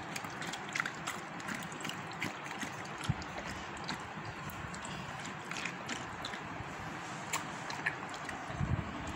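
Siberian husky mother licking a newborn puppy still in its birth sac: a run of short, wet licking and smacking sounds.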